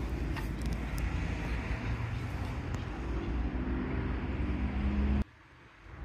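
A motor vehicle engine running, a low rumble whose pitch rises over a couple of seconds before the sound cuts off suddenly about five seconds in.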